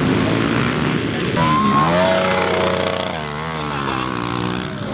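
Several pit bike engines revving hard, their pitch rising and falling as the bikes accelerate and ride past.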